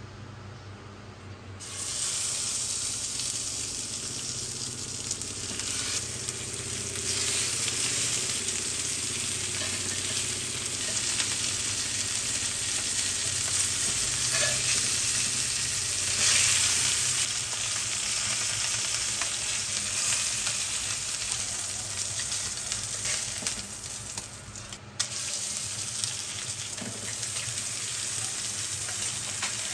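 Food frying in hot oil in a pan. The sizzling starts suddenly about two seconds in and keeps going, with a short dip and a click near the end.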